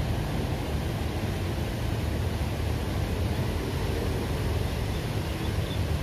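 Steady rushing of a shallow stream running over rocks, with a low rumble underneath.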